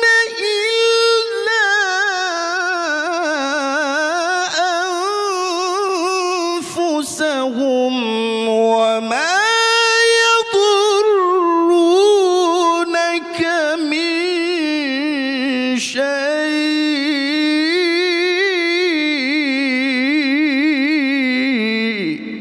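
A man's melodic Quran recitation (tilawah) through a handheld microphone: long, ornamented phrases held on wavering pitch, rising and falling. It pauses briefly about seven seconds in, and the phrase stops abruptly near the end.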